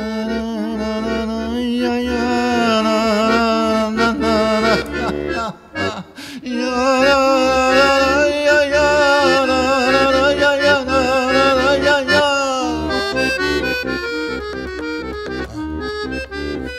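Solo accordion playing an instrumental passage: long held chords, a short break about five seconds in, more held chords, then from about thirteen seconds in a quicker run of short, detached notes.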